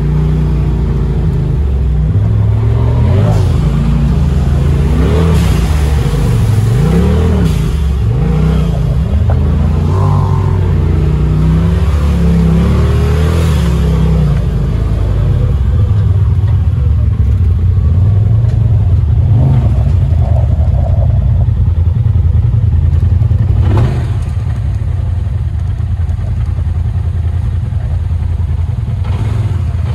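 Polaris RZR Pro XP Turbo side-by-side's turbocharged twin-cylinder engine being driven off-road, revving up and down through the first half, then running more steadily. It drops in loudness about six seconds before the end.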